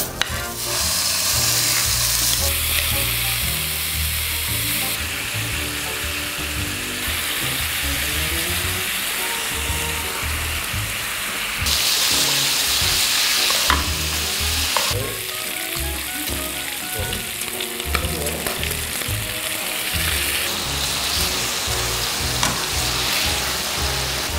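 Pork belly frying in a hot pan, a steady sizzle, stirred and turned with tongs as it renders its fat. The sizzle jumps up and down in level several times.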